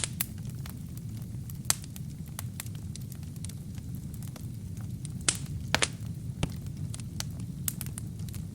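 Wood fire burning: a steady low rumble of flames with irregular sharp crackles and pops from the burning kindling, a few louder pops about 2 and 5 to 6 seconds in.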